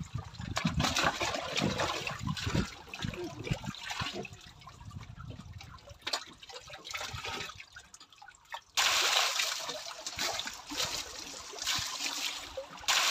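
Bucketfuls of water poured and sloshed over a tractor, splashing off its mudguard and tyre and trickling into standing water. It is quieter in the middle and turns suddenly louder about nine seconds in.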